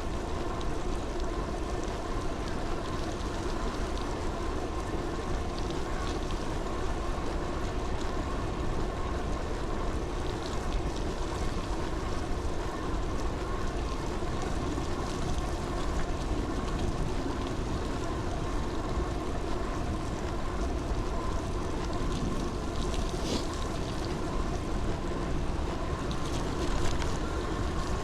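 Steady running noise of a vehicle on the move: an even hum with a few held tones and a rush of wind on the microphone, with no change in speed.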